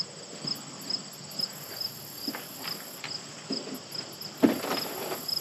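Crickets chirping steadily, about two chirps a second, with a higher insect trill that comes and goes. A few light knocks sound over it, the loudest about four and a half seconds in.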